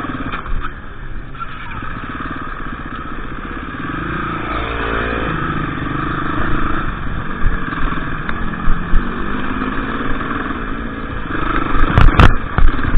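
KTM EXC 350 off-road motorcycle engine running, its revs rising and falling, with a few loud sharp knocks near the end.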